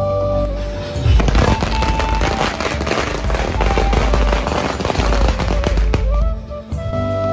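A string of firecrackers going off in a rapid, dense run of bangs, starting about a second in and lasting about five seconds. Flute-led folk music plays before the crackers start and again after they stop.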